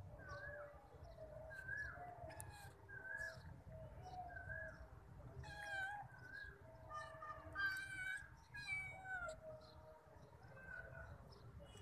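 A cat meows a few times about halfway through, over a small bird's short call that repeats steadily, roughly once or twice a second.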